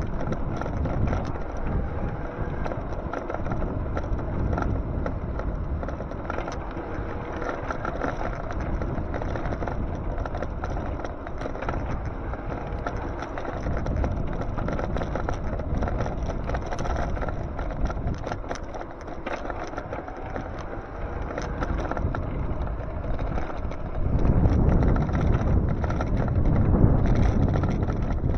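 Steady wind and road noise from riding an e-bike, with wind rushing over the microphone; it swells louder near the end.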